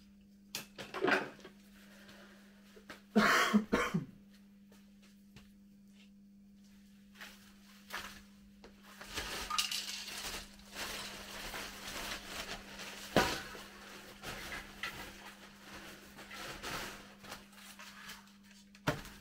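Hard objects clattering and knocking as someone moves things around a workshop, with two loud knocks in the first four seconds and a longer spell of irregular rattling later on. A steady low hum runs underneath.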